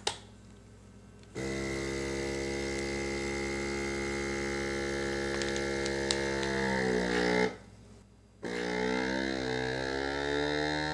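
Inkbird Plus vacuum sealer's pump motor humming steadily as it draws the air out of a bag around a rib eye steak. Its pitch sinks as the bag pulls tight and it stops, then after about a second's pause it runs again with a wavering pitch.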